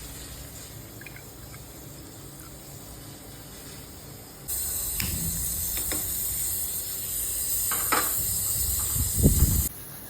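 Kitchen tap running, water splashing into a sink or vessel as a steady hiss that starts suddenly about four and a half seconds in, with a few knocks and low thumps near the end before it cuts off.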